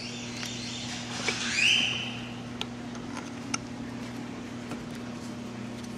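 Screwdriver turning small screws into a Teleflex hydraulic steering pump's housing by hand: scattered light metal clicks and, about a second and a half in, a brief rising squeak, over a steady low hum.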